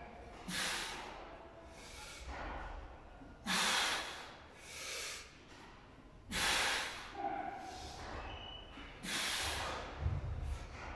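A man breathing hard under load during barbell hip thrusts. Sharp, noisy exhales come about every three seconds, one per rep, with softer breaths between.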